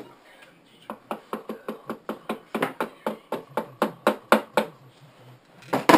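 A rapid, even series of sharp metallic clicks or taps from hand-tool work on engine parts, about five a second for nearly four seconds, then a single louder knock just before the end.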